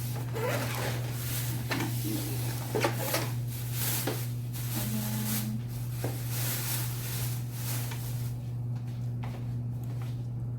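Clicks, knocks and rustling from a newly unboxed microwave being handled, over a steady low hum; the handling sounds die down in the last couple of seconds.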